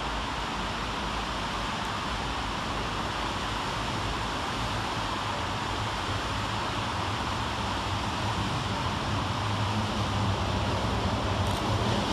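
Class 150 Sprinter diesel multiple unit approaching, its underfloor Cummins diesel engines a low, steady hum that grows louder as the train draws nearer in the second half, over a steady hiss of rain.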